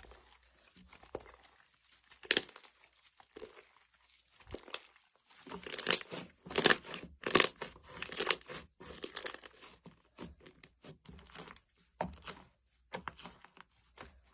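Slime being squeezed and pulled by hand, giving irregular crackling, crunchy pops and sticky tearing sounds, sparse at first and busiest from about five seconds in to about ten.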